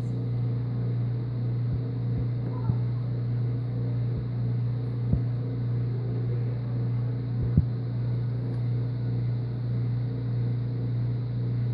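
Steady low mechanical hum that sounds like a laundry machine running, with a few brief pops over it.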